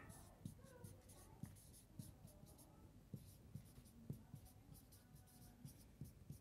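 Faint whiteboard marker strokes: a marker scratching and squeaking on a whiteboard in quick repeated strokes as a large circle is drawn and a word is lettered inside it.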